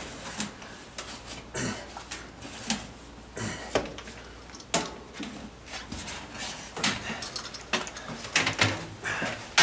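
Sheetrock knife scraping and cutting through old caulking around a metal AC wall housing: irregular scrapes, clicks and light knocks as the blade digs in and breaks the caulk loose.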